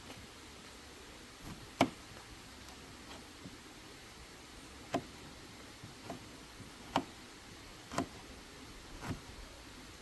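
Scattered sharp knocks and clicks from cooking work, about six of them a second or so apart, over a faint steady background hiss.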